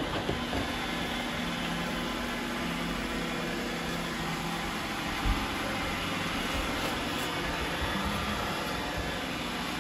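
iRobot Roomba robot vacuum running on a hardwood floor, its suction motor and brushes giving a steady whir with a faint low hum as it sweeps up confetti. A single short knock comes about five seconds in.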